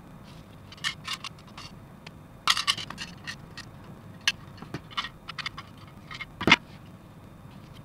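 Hard plastic being handled: small model-kit parts and a clear plastic display case clicking, tapping and scraping against each other, in an uneven run of sharp clicks. There is a cluster about two and a half seconds in, and the loudest knock comes near the end.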